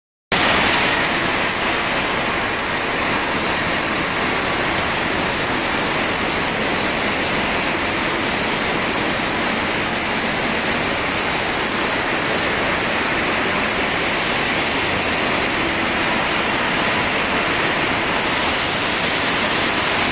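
Crushed concrete and brick rubble streaming over a steel feeder pan and onto a conveyor belt: a steady, dense rattle of stones.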